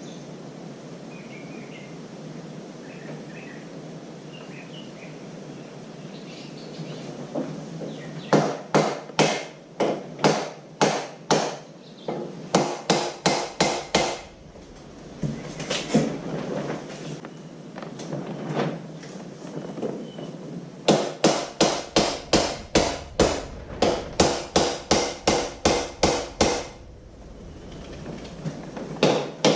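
Hammer blows in quick runs of about two to three a second, striking the cam cover of a 1978 Harley-Davidson Shovelhead engine to break it loose. A few faint bird chirps come before the blows begin.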